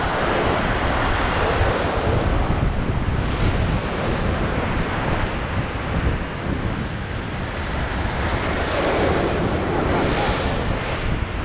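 Ocean surf churning against the jetty below, over a steady low rumble of wind on the microphone; the wash swells twice, near the start and again about nine seconds in.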